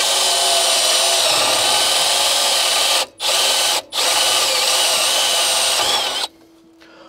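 Milwaukee M12 cordless drill running at full speed into the metal enclosure in three trigger bursts: a long run, a short one and another long run, stopping about six seconds in. Its high whine wavers in pitch as the bit loads.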